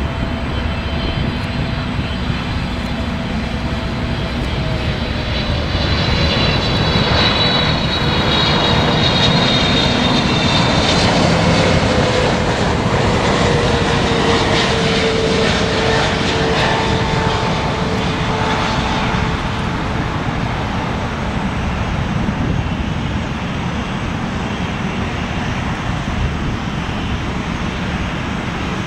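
Boeing 777-300ER's twin GE90-115B turbofans on final approach, passing close by: a jet roar with whining tones that slide down in pitch as it goes past, loudest about ten seconds in. A steadier roar follows as the airliner moves away down the runway.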